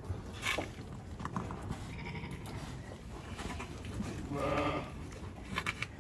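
An Icelandic sheep bleats once, a short call of about half a second a little after the middle, with a few short knocks before and after it.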